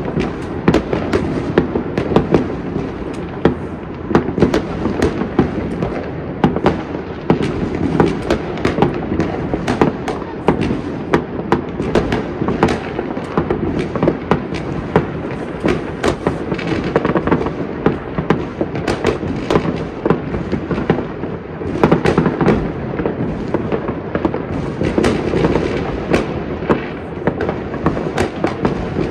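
Many fireworks going off all over a city at once: a continuous din of bangs, pops and crackles, several a second and some louder than others, over a steady rumble of more distant bursts.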